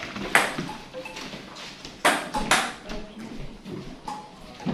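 Table tennis ball being struck by bats and bouncing on the table: a few sharp, short knocks, one near the start, a quick pair about two seconds in, and another near the end.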